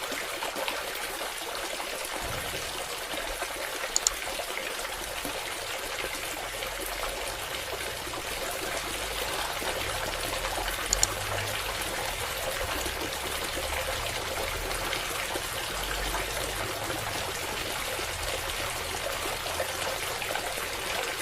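Water trickling and pouring steadily from a mini submersible water pump's outlet, with two brief clicks along the way.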